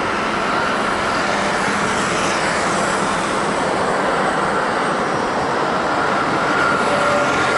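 Steady, loud rushing jet-engine noise from a landing Airbus A330-300 with its Rolls-Royce Trent 700 engines, with a faint whine in the mix and loudness rising slightly.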